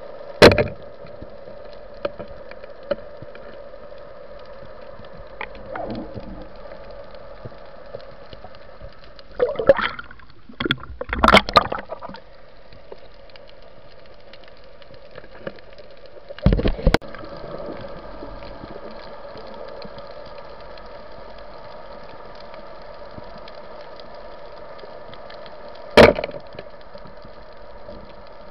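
Underwater sound of a night spearfishing dive: a steady hum with sharp, loud cracks and knocks from the speargun and spear. The loudest comes about half a second in as the gun is aimed at the fish, with a cluster of knocks a third of the way through, another short pair a little past halfway, and one more sharp crack near the end.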